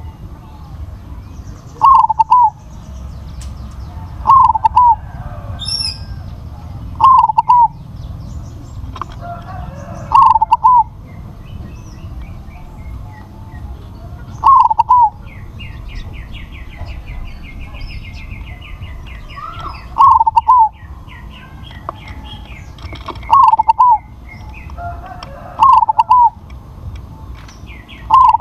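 Crossbred zebra dove (perkutut) cooing: about eight short phrases of a few quick staccato notes, repeated every three to five seconds and the loudest sound. A faint fast high trill runs under them through the second half, over a low steady rumble.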